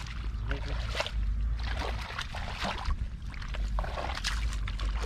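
Shallow rice-field water sloshing and splashing irregularly as it is waded through and worked by hand, with a low rumble underneath.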